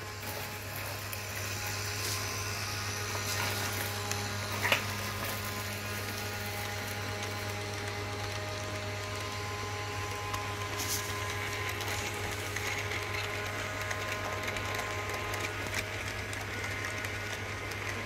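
Rivarossi model of a German 0-4-4-0 Mallet locomotive running on its track: its small electric motor whirs steadily over a low hum, with faint clicks from the wheels and running gear. The low hum stops near the end.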